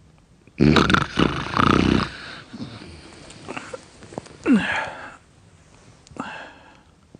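A person snoring loudly. A long, heavy snore comes about half a second in, followed by shorter rasping snores and a snort that falls in pitch.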